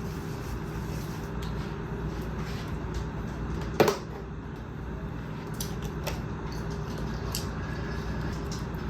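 Objects being handled and set down: scattered light clicks and taps, with one sharp knock about four seconds in, over a steady low hum.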